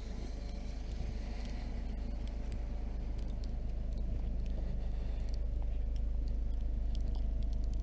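Lifted 4x4 truck's engine running steadily at low revs while crawling through snow, growing slowly louder.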